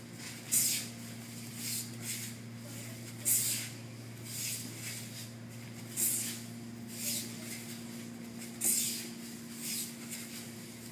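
Quick swishes and rustles of cotton martial-arts uniforms and bare feet moving on the mat as two practitioners repeat a throwing technique, about one every second, over a steady low hum.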